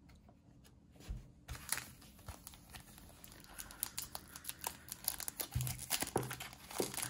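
Foil Pokémon booster pack wrapper crinkling in gloved hands as it is picked up and handled, with many small crackles starting about a second and a half in.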